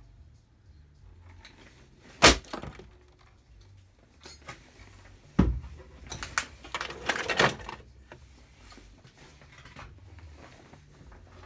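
A heavy wooden beam drops onto a plastic electric hand mixer, crushing it with a sharp crack about two seconds in and a second hard impact a few seconds later, followed by a second or so of knocks and clatter from the broken pieces.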